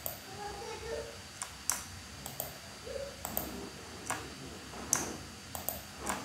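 Computer mouse clicking, about a dozen sharp, irregularly spaced clicks, each one a selection on screen.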